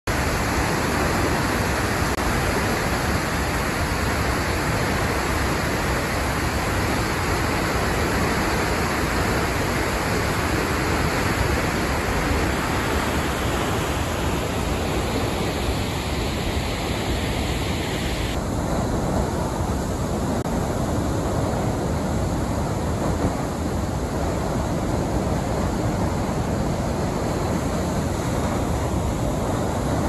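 Tall, fast mountain waterfall plunging onto rocks: a loud, steady rush of falling water with no let-up. A little past halfway the highest hiss in the rush drops away abruptly, leaving a lower, fuller roar.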